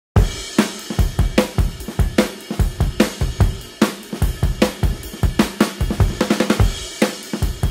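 Intro music led by a drum kit, a steady beat of kick, snare and cymbal hits.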